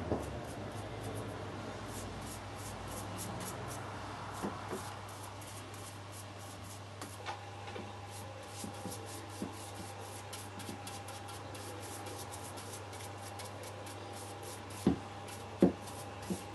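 Bristle brush stroking a liquid finish onto a cherry wood staff: a quick run of short scratchy brush strokes on the wood, with a few sharp knocks near the end.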